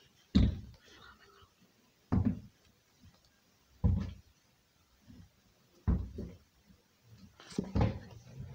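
A series of five dull thumps, about two seconds apart, each dying away quickly.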